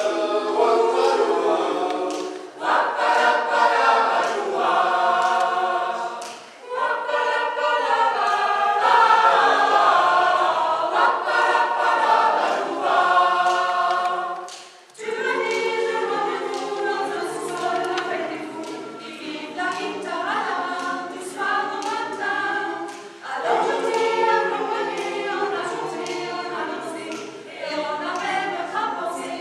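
Mixed choir of women's and men's voices singing, with a few short breaks between phrases.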